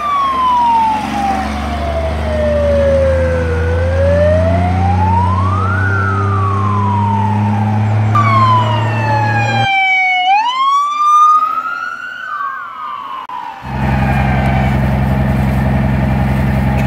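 Fire truck siren wailing slowly down and up over the truck's running engine. After a cut, a higher siren rises in pitch. For the last few seconds a steady low engine drone replaces the sirens.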